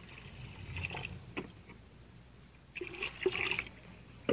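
Water poured from a plastic jug into a plastic tub of swelling water-absorbing polymer gel, the pour tailing off within the first second, followed by a few brief sloshes and knocks.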